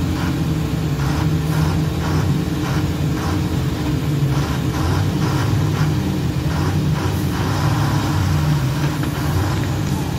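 Heavy diesel engine of a loaded multi-axle lorry running with a low, steady note as the truck inches forward around a tight hairpin bend.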